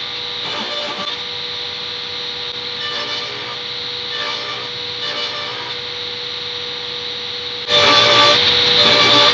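Jobsite table saw running and ripping boards to width, a steady loud whine and rush of cutting. It grows louder about three-quarters of the way through, then cuts off abruptly.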